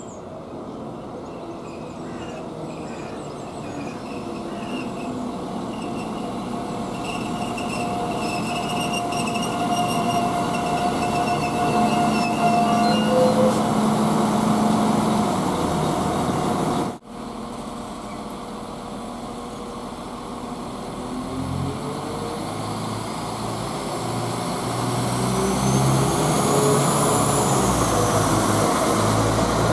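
Class 195 diesel multiple unit arriving and slowing, getting louder as it nears, with a steady high-pitched squeal from its brakes or wheels. After a sudden break, its underfloor diesel engines rev up and get louder as the train pulls away.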